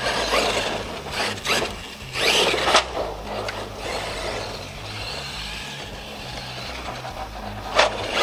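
Radio-controlled monster truck running hard on a dirt track: repeated bursts of tyres scrabbling and scraping through dirt, with sharp hits near three seconds in and near the end.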